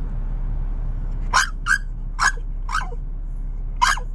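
A dog crying out in about five short, sharp, high yips and whines, starting a little over a second in, impatient for its Puppuccino. A steady low rumble of the idling car runs underneath.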